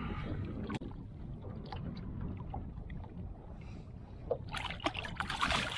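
Low wind rumble on the microphone with water sloshing, then, about four seconds in, a short burst of splashing as a hybrid striped bass held by the lip at the surface is let go.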